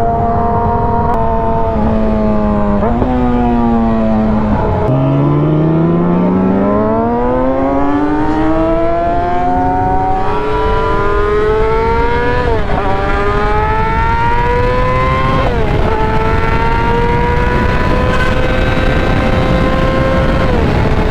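Yamaha R6's 600cc inline-four engine under way: easing off with a downshift blip, then pulling hard from low revs with the pitch climbing steadily through the gears, with three upshifts heard as sudden pitch drops. Wind rush on the helmet microphone runs underneath.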